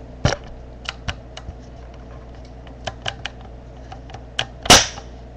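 Plastic spring airsoft pistol held up to the microphone, clicking as it is worked and fired: scattered sharp clicks, with one much louder snap near the end.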